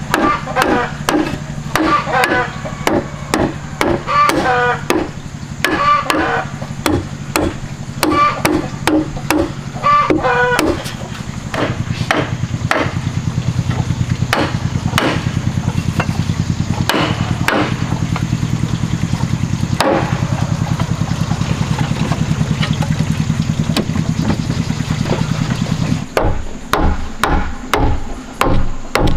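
A mallet knocking wooden wall panels into their timber frame: a run of sharp, ringing wooden knocks, about two a second. From about a third of the way in a steady low hum with rapid, even ticking takes over for most of the rest, and single knocks come back near the end.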